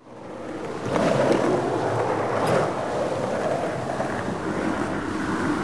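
Sea surf washing over a rocky shore with wind, fading in at the start and swelling about a second in.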